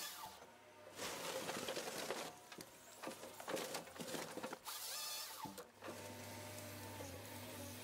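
Forestry harvester at work, heard faintly: uneven machine noise in bursts with short gaps and brief rising and falling whines. A steady low hum takes over for the last two seconds.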